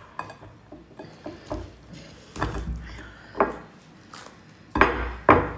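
Spiky husk of a frozen durian cracking and splitting as it is pried apart by hand: a string of sharp cracks and knocks, the loudest two close together near the end.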